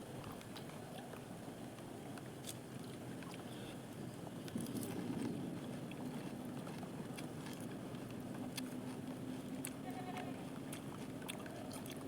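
Someone eating between words: scattered faint crunches and mouth clicks from chewing, over a steady low hum, a little louder about four and a half seconds in.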